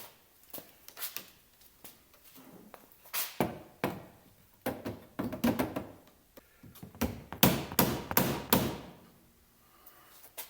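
Irregular taps, knocks and rubbing of hand work on a car's window seal channel, in uneven clusters with short pauses between.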